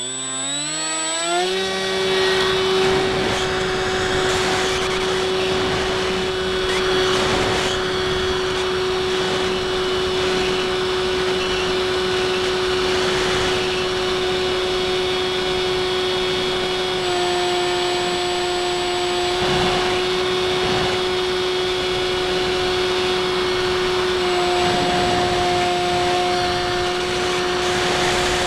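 Stock Bixler 2 electric motor and propeller, heard from a camera on board the plane: it finishes spooling up to a steady whine in the first second or two and holds there, with a slight drop in pitch about 17 seconds in.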